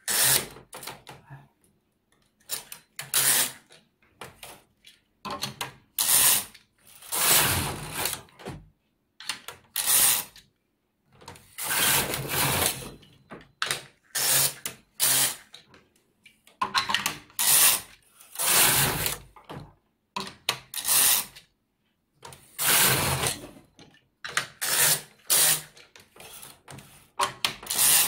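Empisal 560KL knitting machine carriage pushed back and forth across the metal needle bed, a rasping clatter on each pass. The passes come one after another, each lasting about a second, with short pauses in between.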